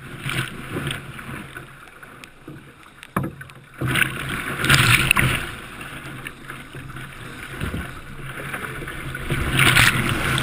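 Rough sea water splashing and washing over a sea kayak's deck, heard up close from the boat. Louder surges of wash come about four to five seconds in and again near the end, with a sharp knock a little after three seconds.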